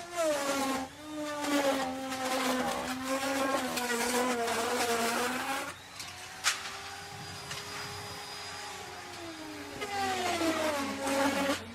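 Electric wood router cutting wood: the motor's whine drops in pitch and a loud cutting noise sets in as the bit bites into the wood, then the pitch climbs back as it runs free for a few seconds, before a second cut near the end. A single sharp tick comes midway.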